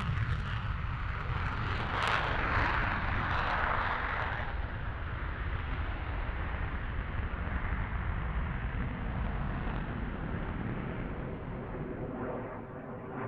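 Jet noise from a MiG-31's two afterburning turbofans on a full-afterburner takeoff: a deep rumble with hiss over it, crackly at first, then fading steadily and growing duller as the jet climbs away.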